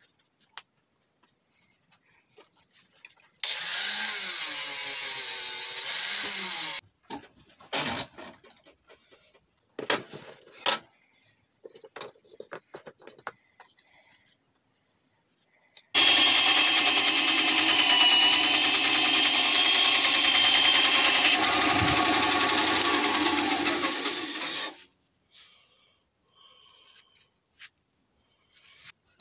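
Workshop power tools: a short run of a whining motor about three seconds in, some knocks and clatter of wood, then a longer run of about eight seconds from a bandsaw cutting a cherry-wood wedge, which stops sharply.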